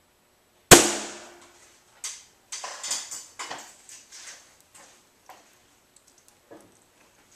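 A single sharp crack about a second in from a Daisy Powerline 880S multi-pump air rifle, pumped ten times, firing a .177 pointed pellet into a water jug a few metres away, with a short ringing tail. Several fainter, uneven taps and rustles follow over the next few seconds.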